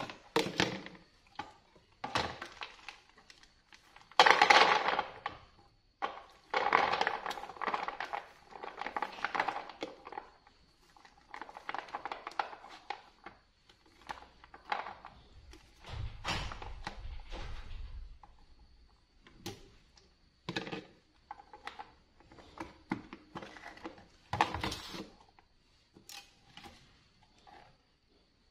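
Kitchen handling sounds: plastic food-storage boxes and lids knocking on a stone counter, and unshelled peanuts rattling as they are tipped from a plastic basket into a plastic box. They come as a string of short bursts of clatter with pauses between.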